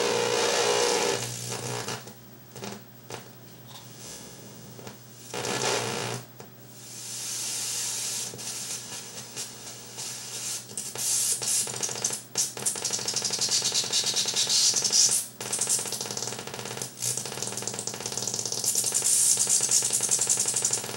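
Homemade battery-powered electronic noise generator sounding through its output cable: harsh hiss and crackle full of clicks, swelling and dropping in loudness and texture as its components are touched and bent.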